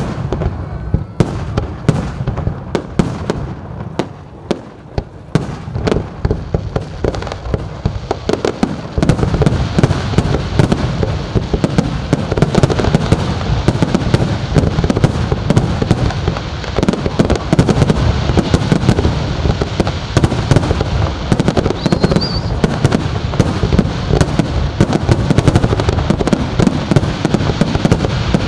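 Fireworks display: aerial shells bursting one after another with crackling. About nine seconds in, the bangs thicken into a dense, continuous barrage.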